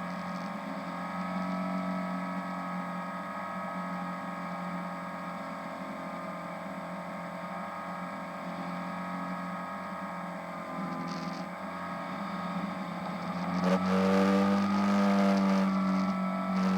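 Radio-controlled model airplane's motor running with a steady drone, getting clearly louder about fourteen seconds in.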